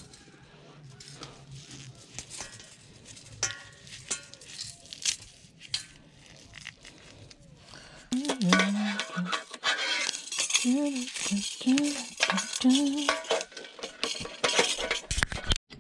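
Small pieces of metal scrap clinking and clattering as they are handled and pulled apart: light, scattered clicks at first, then louder and busier from about eight seconds in, with a woman humming a tune over the clatter.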